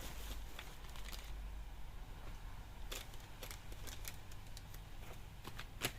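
Light clicks and taps of small metal bolts and heat-shield hardware being handled and fitted, with a sharper click about halfway and another near the end.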